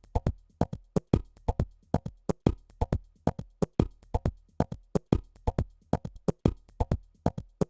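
Electronic drum loop heard through a mastering limiter's delta output, which carries only what the limiting removes. It comes out as a rapid, uneven stream of short clicks and ticks with faint low thuds under them. The low band is being limited separately here, so there is less low end in the delta.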